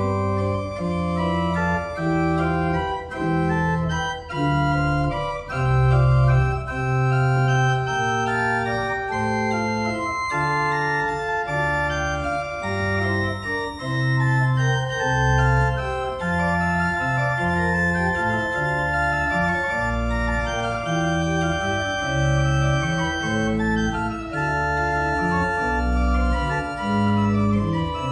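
Berghaus pipe organ playing a piece in sustained chords, with a low bass line that steps from note to note under the changing harmony.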